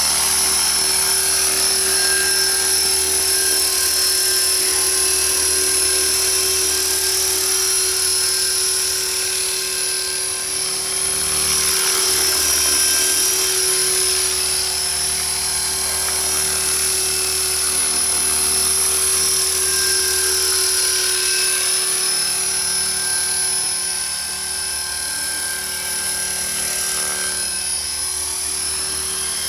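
Radio-controlled model helicopter in flight, its motor and rotor giving a steady, high-pitched whine over a lower hum.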